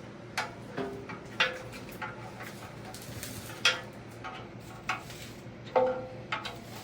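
Metal lathe-stand parts clinking and knocking as a leg and its bolts are handled and fitted: a string of sharp metallic clanks, several with a short ring, the loudest a little past the middle.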